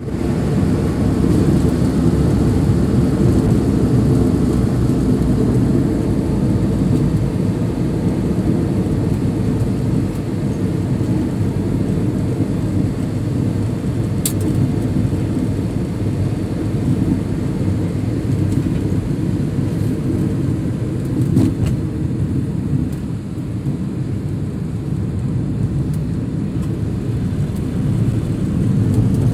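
Steady low rumble of tyre, road and engine noise heard inside a moving car's cabin at highway speed. A single brief high tick about halfway through.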